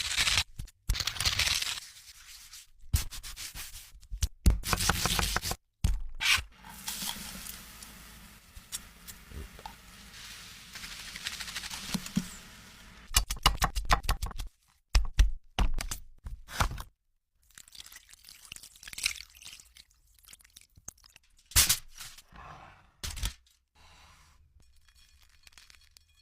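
Food-preparation sounds in short, abruptly cut snippets: scraping, tearing and knocks of utensils and packaging, with a steady hiss lasting several seconds in the middle.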